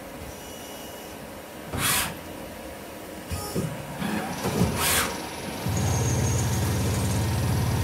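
TCK46A slant-bed CNC lathe at work: short hissing bursts at about two and five seconds in as the 8-station tool turret indexes and the chuck spins up, then a steady low hum from about six seconds in as the spindle turns the bar.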